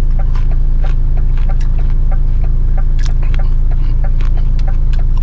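A vehicle engine idling with a steady low hum and a light regular tick about three times a second. Short irregular clicks of eating and handling food come through over it.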